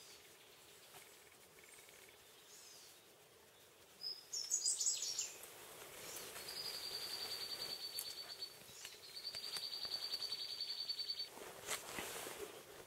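Rainforest ambience with wildlife calls: a short burst of high chirping about four seconds in, then two rapid, evenly pulsed high trills of about two seconds each. A brief knock comes near the end.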